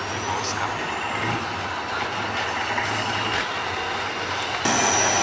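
Heavy trial truck's engine running steadily, with a thin high whine slowly rising in pitch; the sound jumps abruptly louder near the end.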